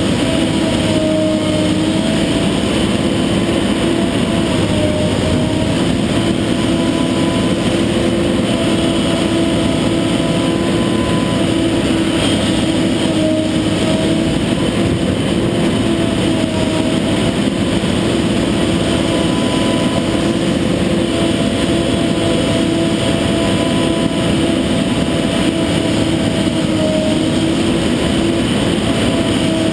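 Kobelco SK250 long-reach excavator's diesel engine and hydraulics running steadily as it works, heard from inside the cab. Over the engine's rumble there is a steady whine whose pitch dips briefly every few seconds.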